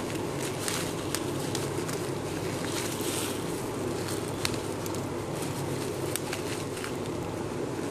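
Steady low background hum and rumble, with a few faint scattered ticks.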